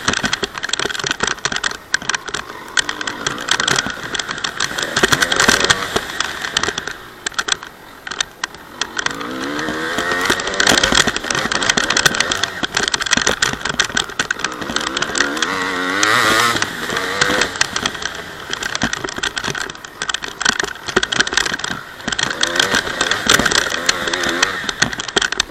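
Honda CR250 two-stroke dirt bike engine being ridden hard, revving up and dropping back again and again, with rattling and clatter over it.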